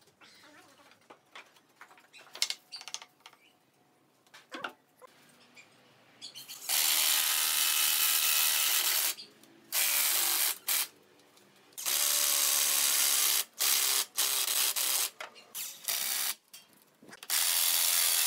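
Cordless impact driver driving screws into pine in about five runs of one to two and a half seconds each, each run a whine with a fast rattle. Before them come a few light knocks and clicks.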